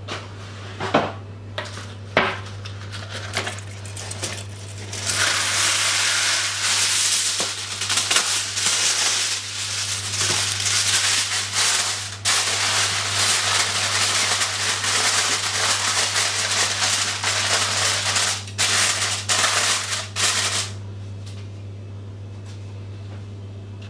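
Aluminium foil crinkling and crackling as it is handled and pressed down over a baking dish. A few light clicks come first, then about five seconds in the crinkling starts and carries on, with a short break around halfway, until it stops near the end.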